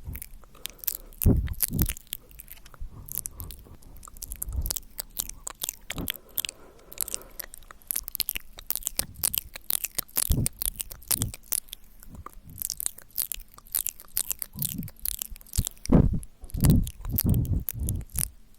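Close-miked ASMR mouth sounds: a rapid, irregular run of wet mouth clicks, tongue clicks and lip smacks. A few louder low pops come about a second in and again near the end.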